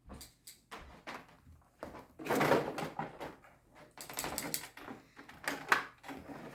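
Handling of an action figure's cardboard-and-plastic packaging: a string of short clicks, knocks and scrapes, with a louder rustle about two and a half seconds in.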